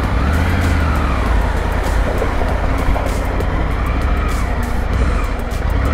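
Triumph Tiger 900 Rally Pro's three-cylinder engine running low and steady as the motorcycle pulls away from a stop in the middle of a stream crossing, over rushing water, with a few short knocks from stones under the tyres.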